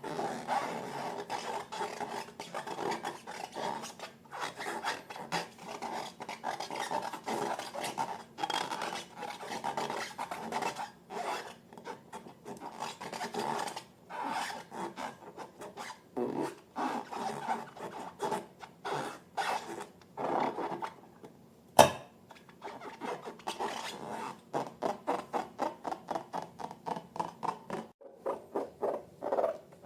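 Slime being stirred and worked, a run of short sticky scraping and squishing strokes that turn quicker and more regular near the end. A single sharp click about two thirds of the way through is the loudest sound.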